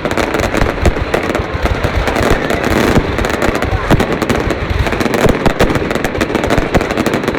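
Fireworks going off in a loud, dense, unbroken run of rapid cracks and bangs.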